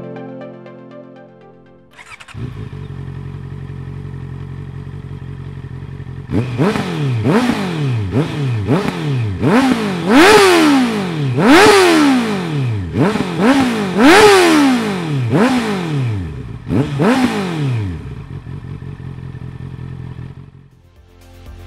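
Honda CB650R inline-four through an SC Project SC1-M full exhaust system, idling with a deep note, then revved in a dozen or so quick throttle blips, each rising and falling in pitch, before dropping back to idle.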